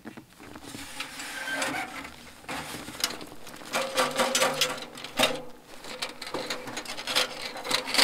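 Portable metal wood stove being tipped and shaken to dump its ashes: irregular metallic knocks, rattles and scraping, with a faint ringing tone from about four seconds in.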